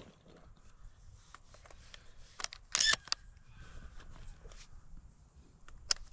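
Scattered light clicks and rustles of handling noise, with one louder brushing rustle about three seconds in.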